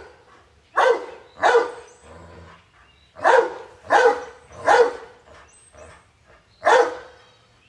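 A dog barking: six short, sharp barks, three of them in quick succession in the middle and single barks either side.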